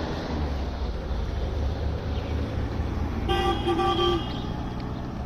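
Steady low rumble of a motor vehicle's engine and road traffic, with a vehicle horn giving two short toots about three seconds in.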